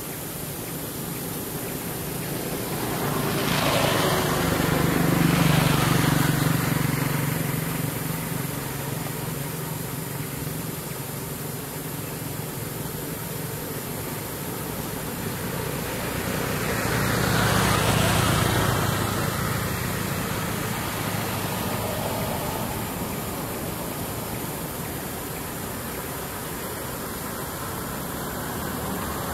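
Two road vehicles driving past, one peaking about five seconds in and another about eighteen seconds in, each swelling up and fading away with a falling pitch, over a steady background hiss.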